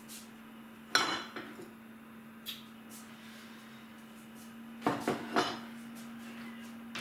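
Dishes and mugs clattering and clinking as they are moved about on a kitchen counter: a loud clatter about a second in, a few lighter clinks, and another short run of clatters around five seconds in. A steady low hum runs underneath.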